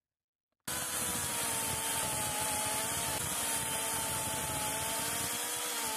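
Ryobi cordless brushless electric chainsaw cutting through a thin branch: a steady motor whine with the chain rasping through the wood. It starts suddenly just under a second in.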